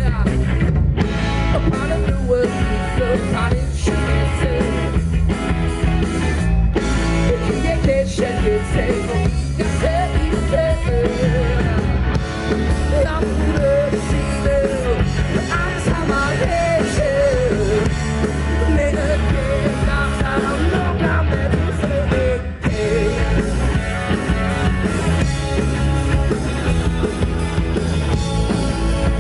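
Live rock band playing a song: a male lead singer over electric guitar, bass and a drum kit.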